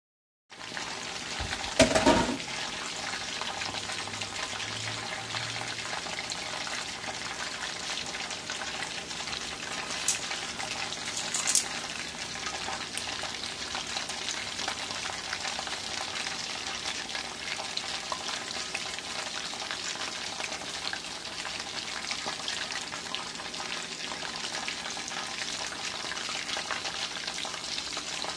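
Chicken deep-frying in hot oil in a wok: a steady crackling sizzle of bubbling oil. A loud knock about two seconds in, and a couple of short clicks later on.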